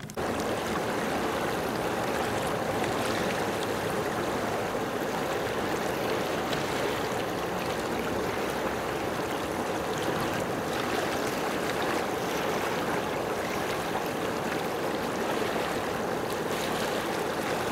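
Steady rush of moving water, an even hiss with no distinct splashes.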